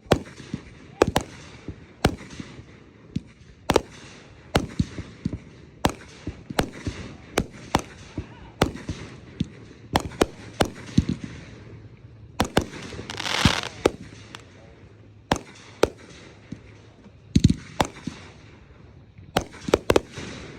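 Consumer fireworks going off in quick succession: a steady string of sharp bangs, one or two a second. A longer hissing crackle swells and fades about thirteen seconds in.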